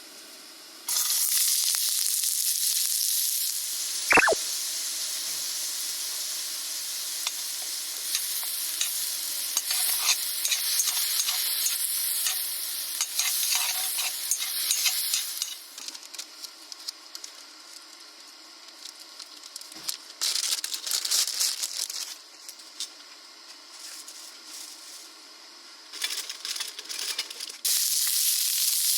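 Food sizzling and frying in a hot pan, with scattered clicks of a utensil stirring it. The sizzle starts about a second in, drops to a quieter crackle about halfway through and comes back loud near the end.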